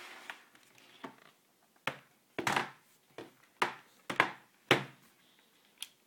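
HP nc4200 laptop's plastic case knocking and clicking as it is handled and turned over on a wooden desk. A series of about ten sharp knocks, loudest in the middle.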